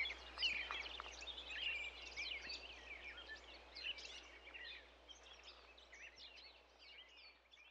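Faint chorus of many wild birds chirping and singing in quick overlapping calls, thinning out over the last few seconds.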